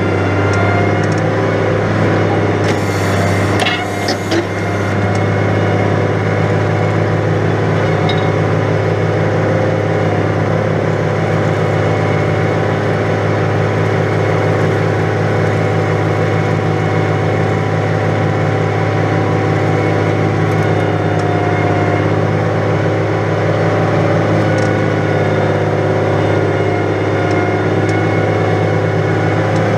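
New Holland 100-90 tractor's diesel engine running steadily under load while pulling a plough through wet, heavy ground. A short clatter sounds about three to four seconds in.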